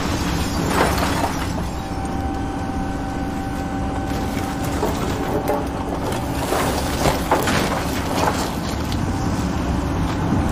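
Demolition excavator running steadily as its grab tears into a building, with cracking and crunching of timber and debris, the cracks coming thicker in the second half.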